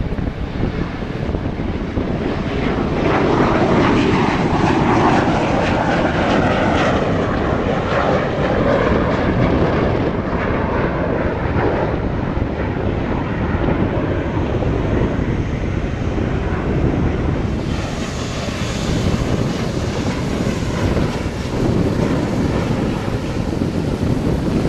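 Four jet engines of a Boeing 747-400 freighter at high power on the runway, a loud, steady roar with a whine that slides down in pitch over several seconds. Past the middle the sound changes to another jet airliner's engines, closer and hissier.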